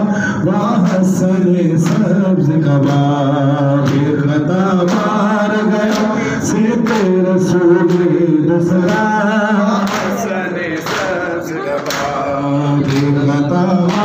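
Male noha recitation, a Shia lament sung unaccompanied into a microphone, the voice wavering in long held lines. Sharp slaps come through about once a second, from mourners beating their chests (matam).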